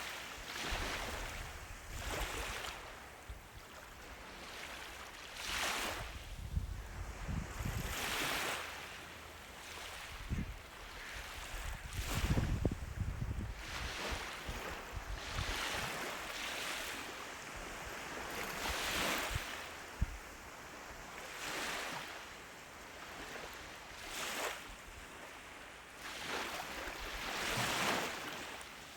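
Ocean waves breaking and washing onto a beach, a rushing surge that swells and fades about every two to three seconds, with now and then a deep rumble underneath.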